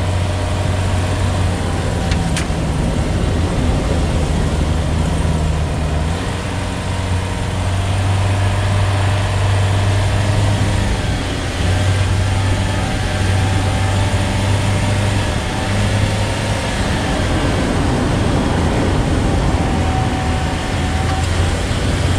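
A road vehicle on the move: its engine runs with a steady low hum over continuous road noise, easing off briefly a few times.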